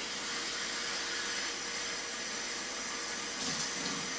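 Kitchen tap running water into a plastic bottle, filling it; a steady rush of water, with a lower note joining about three and a half seconds in.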